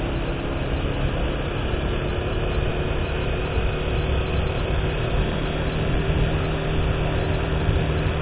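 Vehicle engine running steadily at cruising speed, with a low rumble of wind and road noise on the microphone.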